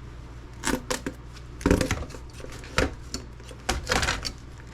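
Laptop parts being pried apart and handled: a string of sharp plastic-and-metal clicks, knocks and clatters.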